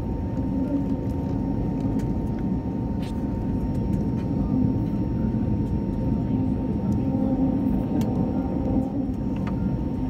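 Steady cabin noise inside an Airbus A320 on the ground: a constant low rumble of the running engines with a steady hum over it.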